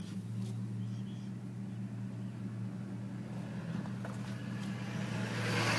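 Car engine and road hum heard from inside the cabin, a steady low drone. A rushing noise swells near the end.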